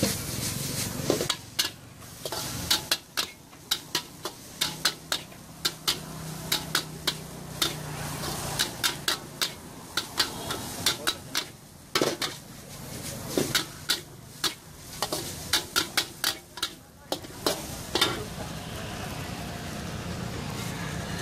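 A metal spatula scraping and clanking against a steel wok in fast, irregular strokes during stir-frying, over the sizzle of the frying food. The clanking stops near the end and the sizzling carries on.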